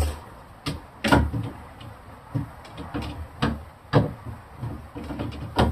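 Irregular knocks and clacks of refrigerator shelves, bins and drawers being handled and set back into place, about eight of them, the loudest at the very start, about four seconds in and near the end.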